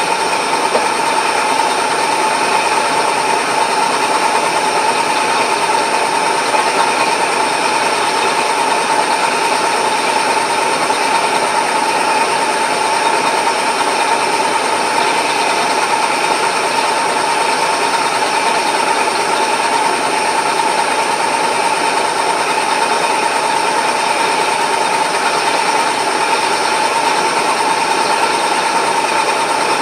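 Milling machine running steadily with a drill chuck in its spindle, giving an even mechanical drone with a steady whine on top.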